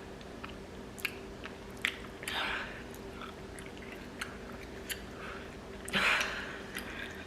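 Close-up mouth sounds of someone eating soft noodles: chewing with scattered wet clicks and smacks, and two louder airy swells about two and a half and six seconds in. A faint steady hum runs underneath.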